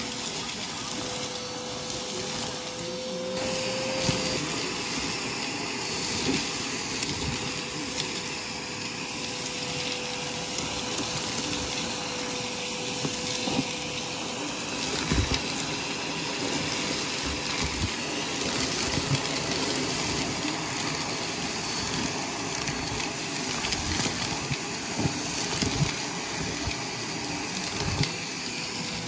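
Vacuum cleaner running steadily through a bare hose wand on shag carpet, with a steady whine, as glitter, beads, rubber bands and coins crackle and click up the wand in frequent short ticks.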